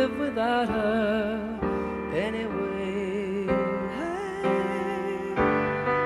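Slow piano ballad with a singer holding long, wavering notes over sustained piano chords.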